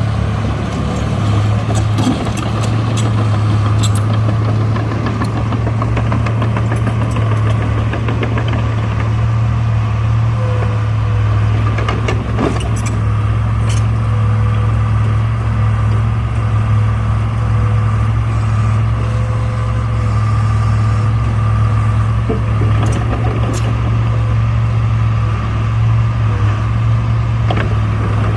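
Diesel engine of heavy earthmoving equipment running steadily at a low, even pitch, with a few sharp clicks scattered through.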